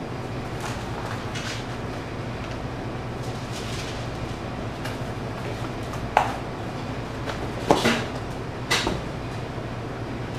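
Cardboard pizza boxes being folded and handled: light rustling and scraping of the card, then three sharp slaps about six, eight and nine seconds in, the one near eight seconds the loudest. A steady low hum runs underneath.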